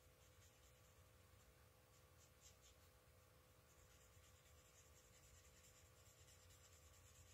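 Faint scratching of a Stampin' Blends alcohol marker's tip rubbing back and forth on cardstock as colour is scribbled in, the strokes coming more steadily from about halfway through.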